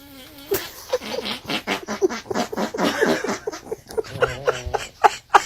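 A pet animal making a rapid series of short vocal sounds, about three a second.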